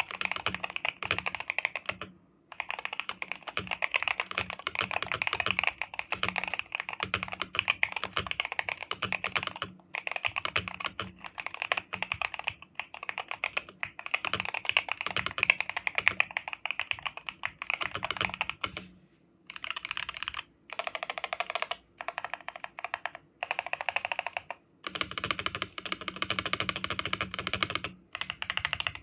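Fast typing on an Eweadn Deep80 Hall effect keyboard, which has Gateron Everfree Magneto Pro linear switches, PBT keycaps and a foam-filled sandwich mount. The keystrokes come in long continuous runs with brief pauses, and in the last third they break into shorter bursts.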